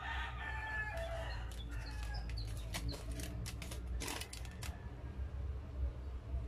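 A rooster crowing, its call ending about a second in, followed by a run of sharp clicks lasting about three seconds over a steady low hum.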